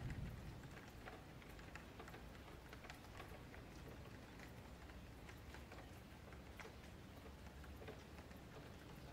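Near silence, with faint scattered ticks over a low background hum.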